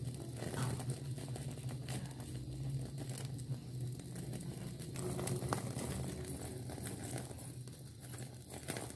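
Oil-brushed chicken tikka pieces on a bamboo skewer roasting over an open gas burner flame: a steady low flame hum with scattered light crackles.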